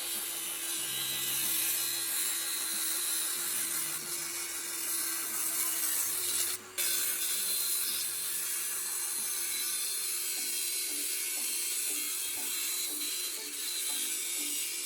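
Angle grinder cutting through the thin metal wall of an electric kettle: a steady rasping hiss with a faint motor hum under it, broken off briefly about six and a half seconds in.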